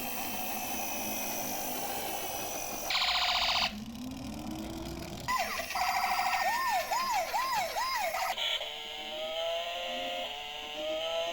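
A series of emergency-vehicle siren sounds: a brief harsh buzz about three seconds in, a fast up-and-down warbling siren from about five to eight seconds, then a slower siren wail that rises again and again.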